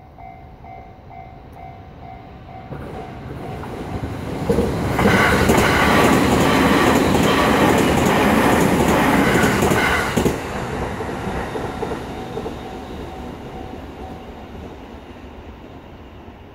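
A train on the JR Sobu Main Line passes over the level crossing. It builds from about three seconds in, runs past loudly for about five seconds, then fades away. Through it the crossing's warning bell keeps ringing in a steady repeating beat.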